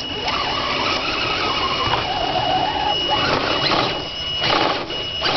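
Radio-controlled rock crawler's electric motor and gears whining as it crawls over rocks, the pitch shifting with the throttle, over a constant high tone. A short burst of scraping noise comes about four and a half seconds in.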